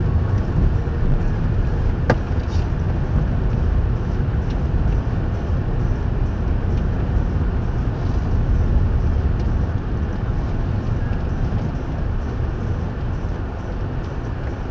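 A car's engine and tyres on a snow-covered road, heard from inside the cabin through a dashcam: a steady low rumble, with a sharp click about two seconds in.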